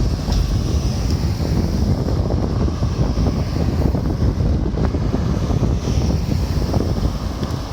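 Wind buffeting a smartphone's microphone: a continuous, uneven low rumble.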